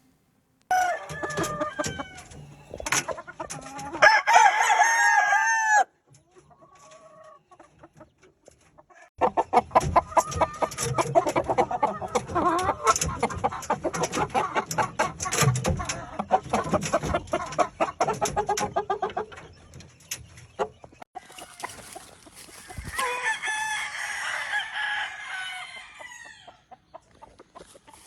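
Gamefowl roosters crowing, with a long run of rapid clucking in the middle and more crowing near the end.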